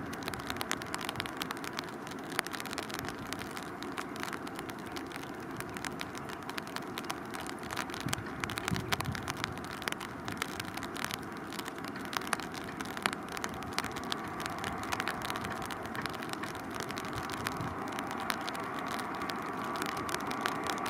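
Distant jet noise of an Airbus A319 on final approach: a steady hiss full of small crackles, with a faint engine whine coming in over the second half as the airliner draws nearer and the sound grows slightly louder.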